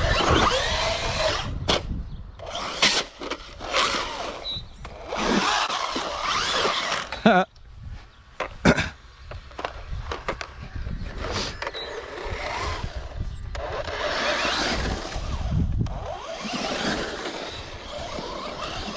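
Traxxas Rustler VXL RC truck's brushless motor whining up and down in pitch as it accelerates and slows, over and over, with a few sharp knocks along the way.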